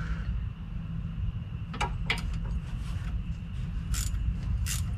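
Scattered light metallic clicks and ticks from a Chevrolet Caprice's rear axle and brake drum being turned by hand, over a steady low hum. The clicks come in a short cluster about two seconds in and again near the end.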